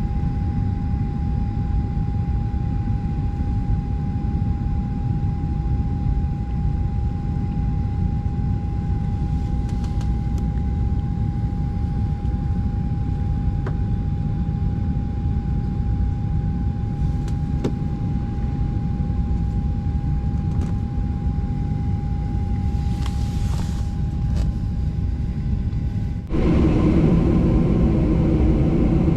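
Steady low rumble of a Boeing 737 cabin from engines and air system, with a faint steady whine and a few light clicks. About 26 seconds in the whine stops and the rumble turns suddenly louder and fuller.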